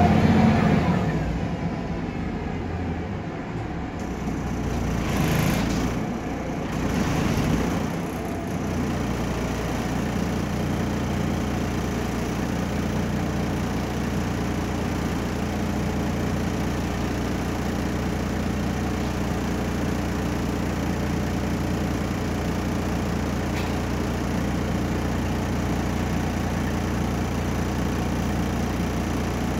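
Volvo B7RLE bus's rear-mounted six-cylinder diesel engine heard from inside the saloon, winding down as the bus stops. It gives two brief hissing surges about five and seven seconds in, then idles steadily.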